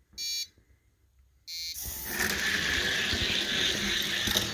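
Two short electronic start beeps about a second and a half apart, then two 1:64-scale diecast cars are released down a drag-strip track: a loud, steady rushing rumble of their wheels on the track for nearly three seconds that cuts off suddenly as they reach the finish.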